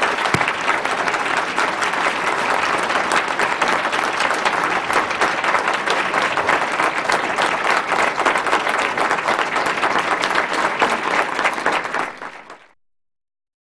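Large audience clapping in sustained applause, dense and steady, then fading out quickly near the end.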